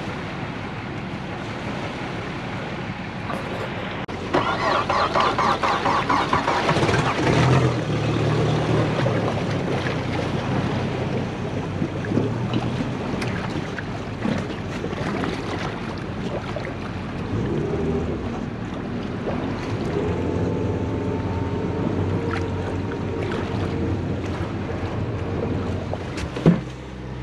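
Boat engine cranking with a rapid pulsing for a few seconds, catching about seven seconds in, then running steadily at idle.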